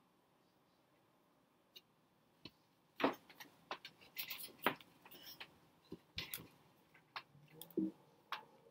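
Handling noise close to the microphone: after about three seconds of quiet, a run of irregular taps, knocks and clothing rustle as the person leans in to the camera.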